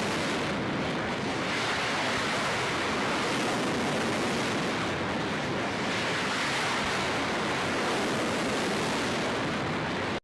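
Steady rushing noise with no tone or rhythm, starting and stopping abruptly.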